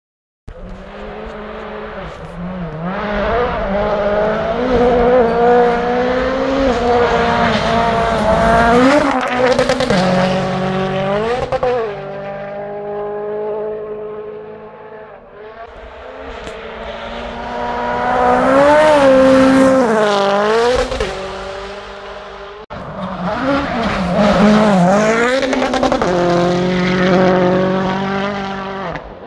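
Ford Fiesta RS WRC rally car's 1.6-litre turbocharged four-cylinder engine revving hard, its pitch climbing and dropping again and again through quick gear changes as the car passes. It comes in several separate passes with abrupt cuts between them, and the loudest pass is a little past halfway.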